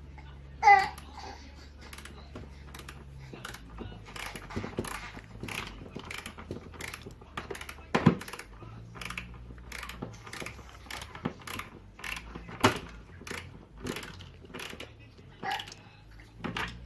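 A hinge screw being driven into a kitchen cupboard door by hand with a screwdriver: a run of irregular clicks and ticks, with a louder knock about eight seconds in. A brief high-pitched sound stands out about a second in.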